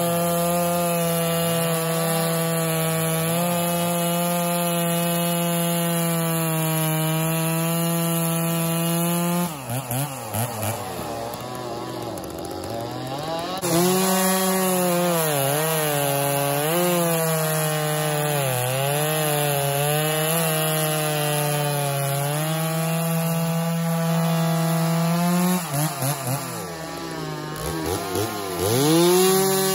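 Stihl two-stroke chainsaw cutting through a conifer log at full throttle, held at a steady pitch. After about ten seconds it drops to idle, then revs back into a second cut, its pitch sagging and recovering as the chain bites under load. Near the end it idles briefly and revs up again for the next cut.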